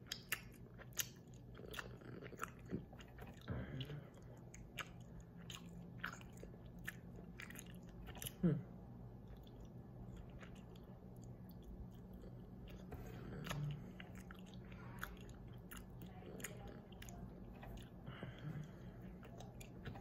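Close, quiet mouth sounds of someone chewing a soft, chewy Sweet Tarts candy rope: many small wet clicks and smacks. One brief, louder sound with a falling pitch about eight seconds in.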